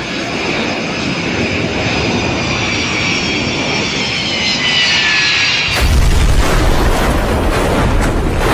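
Boeing 727 jetliner's engines whining as it flies low, with several high tones sliding slowly down in pitch. A little under six seconds in, a sudden loud, heavy rumbling crash takes over as the airliner hits the ground and skids on its belly.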